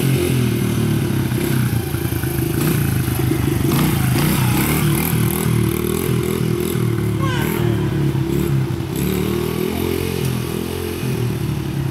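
A 70cc dirt bike engine running as the bike is ridden, its note wavering up and down with the throttle.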